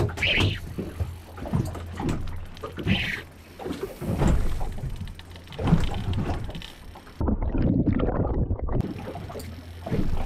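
Water slapping and sloshing against a small boat's hull, with wind on the microphone, in uneven swells.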